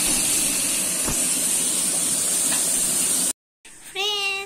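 Bata fish sizzling in hot oil in an iron wok, a steady hiss that cuts off about three seconds in; a young girl starts singing near the end.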